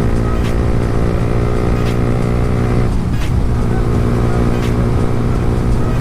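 Yamaha R15 V3's single-cylinder engine running steadily while being ridden. About three seconds in, the engine note breaks off and changes, as at a gear change or throttle change, then carries on.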